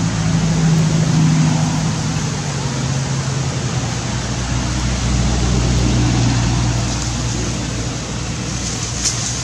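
A motor engine running steadily over a constant hiss, its low hum dropping in pitch a couple of seconds in.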